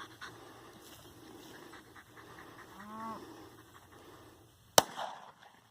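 A single sharp gunshot near the end, fired as a loud distraction during a dog's obedience test. About three seconds in there is a short, low animal call.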